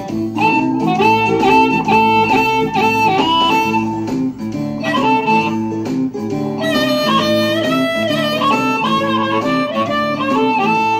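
Blues harmonica, a Hohner Golden Melody in the key of D, played cupped together with a handheld microphone in Chicago blues style, with held and bent notes. A blues guitar accompaniment runs underneath.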